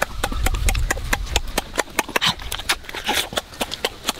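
Crispy roast chicken being torn apart by hand and eaten: rapid, irregular crackling clicks over a low rumble.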